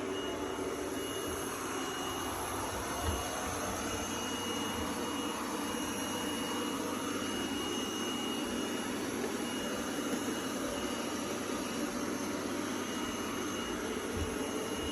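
Robot vacuum cleaner running: a steady whir of its suction motor and brushes with a thin high whine over it and a few light bumps.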